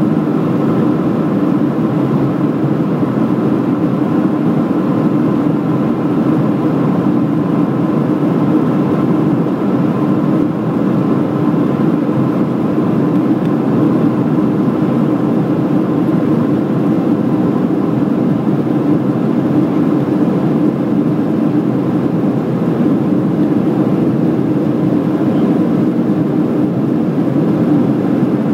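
Cabin noise of a Boeing 737 airliner in flight: the steady roar of the jet engines and rushing air, heard from a window seat, with a faint steady whine over it.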